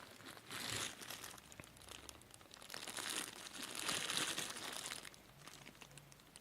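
Packaging crinkling and rustling as small phone-charging adapters are handled, in two stretches: a short one about half a second in and a longer one from about three to five seconds in.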